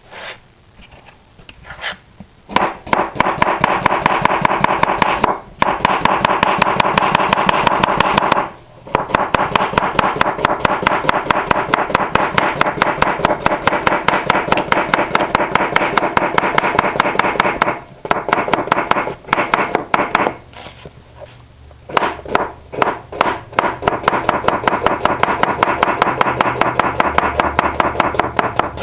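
Kitchen knife rapidly slicing a cucumber into thin rounds on a cutting board: several long runs of fast, even chopping strokes, broken by short pauses.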